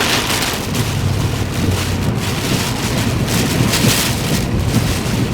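Wind and rain noise on a moving vehicle, with gusty swells over a steady low drone from the engine and road.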